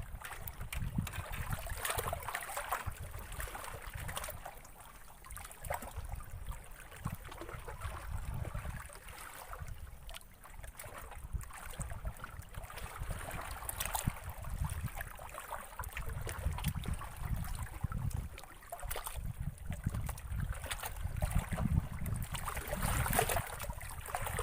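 Water lapping and splashing, with an uneven low rumble and scattered small clicks.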